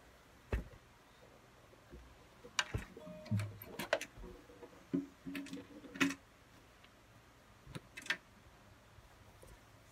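Handling noise from an acoustic guitar being moved about and fitted with a strap: scattered knocks and clicks against the body, with a few brief ringing tones from the guitar in the middle.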